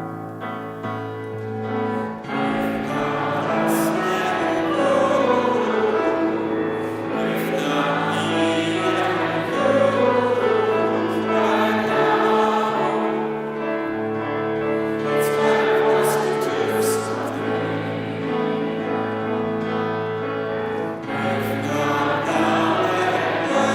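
Choir singing over instrumental accompaniment, with long held low bass notes underneath.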